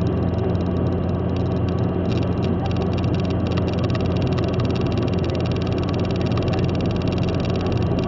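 Steady road and engine drone inside a car cruising at motorway speed, a continuous low hum under tyre noise.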